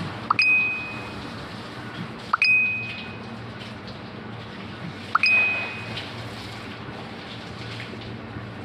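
Three short, high-pitched electronic dings about two and a half seconds apart, each opening with a quick upward chirp, over a steady rushing background noise.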